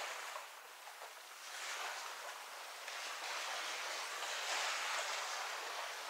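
Small waves washing onto the beach, the surf swelling and falling back every second or two.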